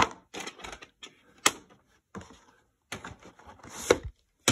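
Plastic VHS clamshell cases being handled and set down on a wooden shelf: several sharp clacks and knocks with light rubbing between them, the loudest about a second and a half in and near the end.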